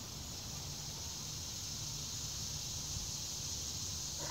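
Steady high-pitched insect chorus with a low steady hum underneath.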